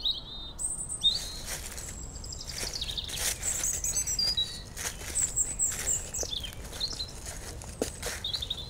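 Several songbirds chirping and trilling in short high calls, some sliding down in pitch, over a low steady background hiss of outdoor ambience.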